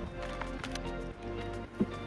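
Background music with steady held notes, and a short knock near the end.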